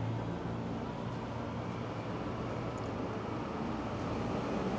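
Steady background noise with a low mechanical hum, such as street traffic.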